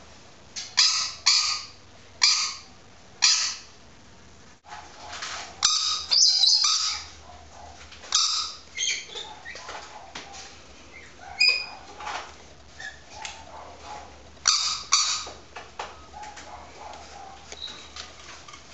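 Rainbow lorikeet giving short, loud, high-pitched bark-like calls from inside a clear perspex box toy that amplifies its voice, imitating a yappy dog. The calls come four in a row, then in bursts with gaps between. A dog barks in the background.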